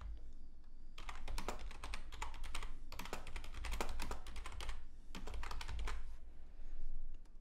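Computer keyboard typing: quick runs of key clicks starting about a second in, broken by short pauses, over a low steady hum.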